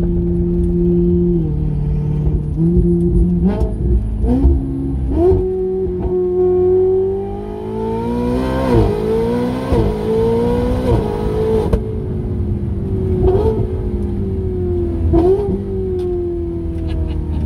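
Performance car engine heard from inside the cabin: it accelerates hard with revs climbing, breaks twice in quick gear changes about nine and ten seconds in, then lets off, with the revs sinking slowly and a couple of short blips on the way down.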